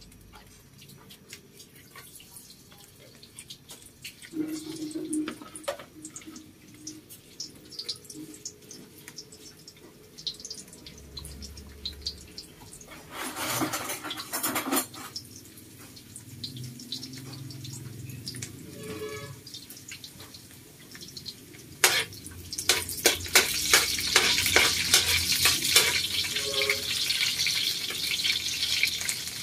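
Chopped garlic frying in hot oil in a wok: scattered light crackles and spits at first, a brief louder hiss near the middle, then from about three-quarters of the way through a steady, louder sizzle with a spatula clicking and scraping against the wok as the garlic is stirred.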